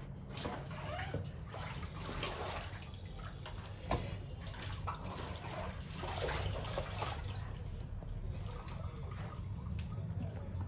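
Water splashing and running as clothes are washed by hand in a bucket, with scattered splashes and a sharp knock about four seconds in, over a steady low hum.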